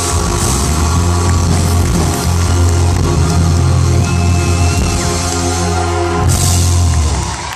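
A live band plays loudly with heavy bass and drums. Near the end a bright crash comes in, and then the music stops.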